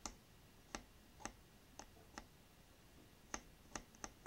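Hobby knife tip scraping glue-softened paint off a plastic model part's tab: small, sharp clicks at uneven spacing, about eight in four seconds.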